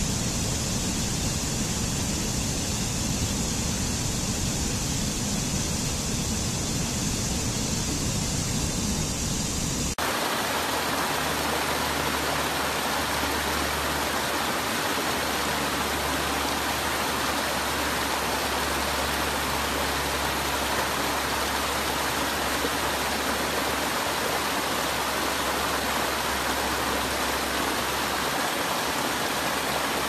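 Rushing water of a stream tumbling over rocks and small cascades, a steady noise. About ten seconds in it changes abruptly to a brighter rush with a low steady hum beneath it.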